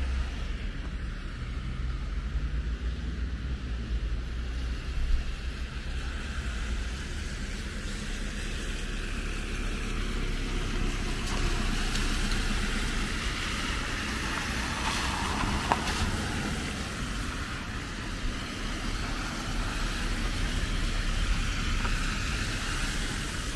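Rain falling steadily on an umbrella, an even hiss of drops over a low rumble.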